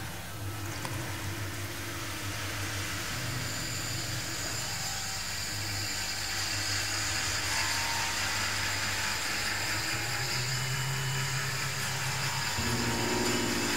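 Steady wind rustling through the leaves of park trees, a continuous hiss, over a low steady hum whose pitch shifts about ten seconds in and again near the end.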